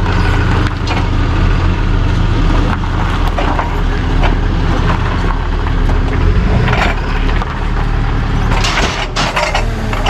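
Tow truck's engine idling steadily, with a few knocks and clanks and a short burst of hiss about nine seconds in.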